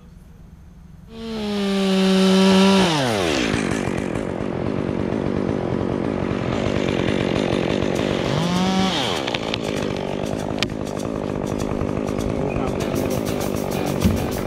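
Two-stroke chainsaw revved high about a second in, then dropping in pitch as the chain bites and it cuts through the wood under load. About two-thirds of the way through it revs up briefly again and goes back to cutting.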